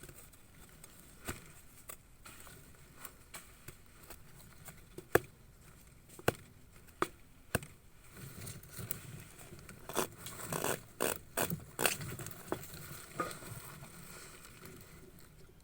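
Soil being heaped over a grapevine: scattered light clicks and patters of soil and clods, thickening into a denser crackling run for a few seconds past the middle.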